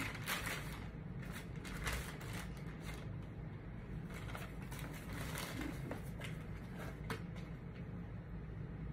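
Paper and cardboard rustling in short, scattered bursts as a sneaker box is opened and its tissue wrapping pulled back.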